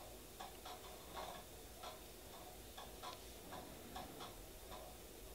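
Faint, irregular light clicks and taps, roughly two a second, from small hard items such as nail stamping plates and tools being handled and set down.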